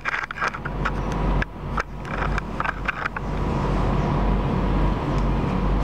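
A steady low rumble, with a quick run of clicks and knocks during the first three seconds.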